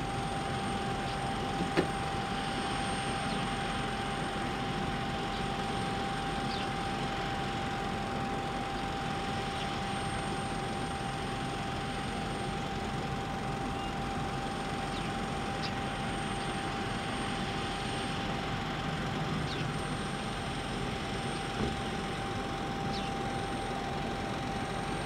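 Steady rushing noise of running aircraft machinery at an airport apron, with a constant mid-pitched whine over it and a couple of faint clicks.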